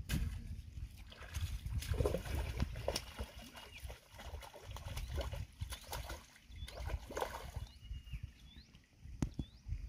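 A hooked rohu thrashing and splashing at the water's surface as it is played in on a long rod, in uneven surges with a few sharp slaps.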